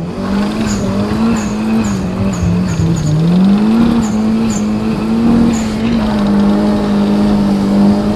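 Nissan S13's engine heard from inside the cabin, running hard at high revs, its pitch wavering down and up before holding steady.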